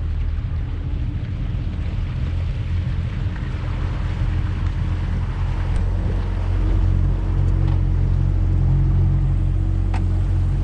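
Boat motor running steadily, with a deep rumble and a steady hum that grows a little louder and higher about halfway through.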